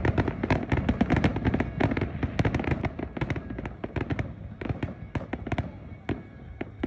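Aerial fireworks bursting in quick succession: a dense volley of sharp bangs and crackles that thins out to scattered pops over the last few seconds.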